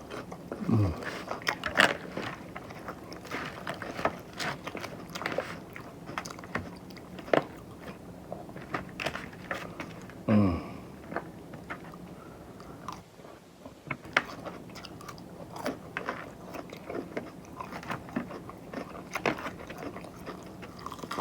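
A person biting and chewing crispy chicken salad close to the microphone, with many small crunches and clicks. Twice, about a second in and again about halfway, a short low sound falls in pitch.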